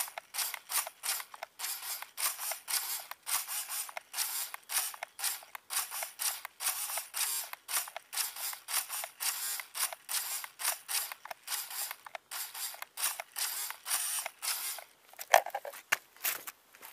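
A small mechanism creaking and clicking in a quick, steady rhythm, about three strokes a second. A single louder knock comes near the end.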